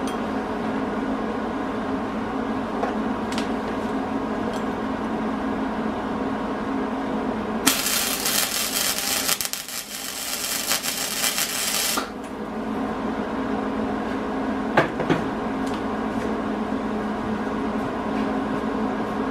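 An electric welding arc runs for about four seconds, starting about eight seconds in and cutting off suddenly. It is welding an angle-iron bracket onto the go-kart's steel tube frame. A steady mechanical hum with fixed tones goes on throughout, with a sharp click a few seconds after the weld.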